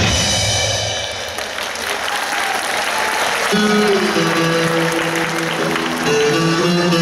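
Recorded show music fades as the audience applauds. About three and a half seconds in, a new piece of music starts with steady held notes.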